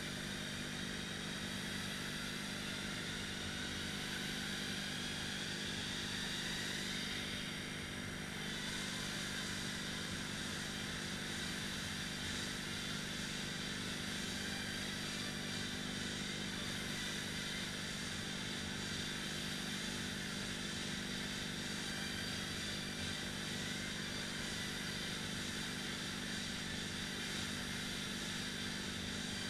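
Indoor rowing machines' fan flywheels whirring steadily as two people row.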